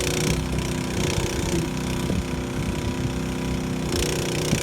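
An engine running steadily at idle, with a couple of faint knocks.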